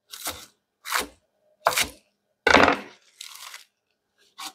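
Kitchen knife chopping fresh spinach on a cutting board: about six separate cuts, roughly one every three-quarters of a second, the fourth the loudest.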